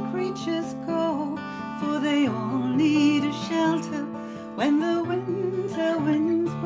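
Acoustic folk music: guitar accompaniment under a held, wavering melody line.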